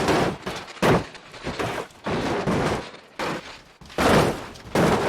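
A series of sharp bangs, irregularly spaced about one or two a second, each with a short ringing tail.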